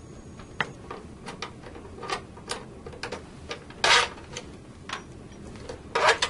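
A Phillips screwdriver clicking and scraping in the front-cover screws of an Eaton Series NRX power circuit breaker as the screws are backed out, with irregular light ticks. There are two louder rattling clatters, about four seconds in and near the end.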